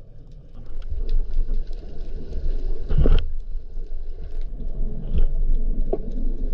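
Underwater sound picked up by an action camera in its housing: a steady low rumble of water with faint scattered clicks, and one louder thump about halfway through.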